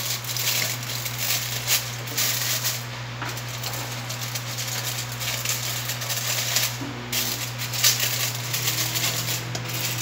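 Aluminum foil crinkling and rustling in irregular crackles as it is pressed and smoothed by hand into an air fryer basket, over a steady low hum.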